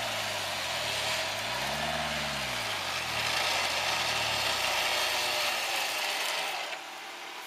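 Off-road 4x4's engine running while it is being winched out, with a rise and fall in revs about two seconds in. Near the end the engine sound and the hiss over it die away together as the engine stalls.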